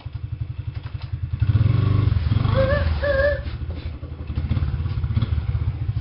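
Small dirt bike engine running with a fast, even firing pulse, revved up about a second and a half in and easing back down after about three seconds.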